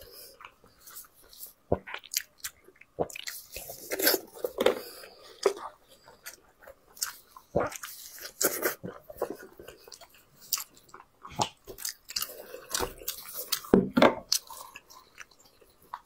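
Close-miked biting and chewing of braised sheep head meat: irregular bites, wet mouth smacks and sharp clicks.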